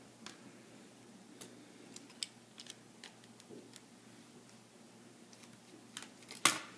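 Scattered small, sharp clicks and taps of a laptop screen's metal mounting bracket and its screws being handled and set down, with one louder click near the end.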